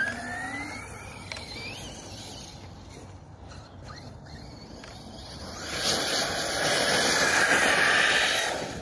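Arrma Kraton 6S RC truck's brushless motor whining as it accelerates, the pitch rising over the first second or so. From about six seconds in, a loud rushing hiss of water spray as the truck skims across the flooded, half-frozen puddle at speed.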